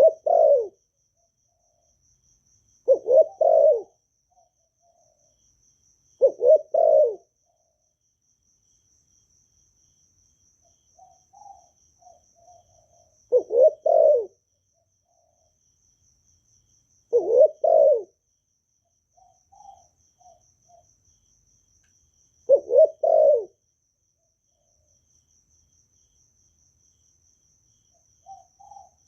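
Spotted dove cooing: six loud phrases of two or three low coos, spaced a few seconds apart, with softer short coos in between. A faint, steady, high cricket trill runs underneath.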